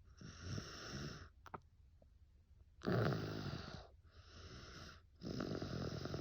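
A young boy snoring in his sleep: about four long, noisy snoring breaths, roughly a second each, the loudest one about three seconds in.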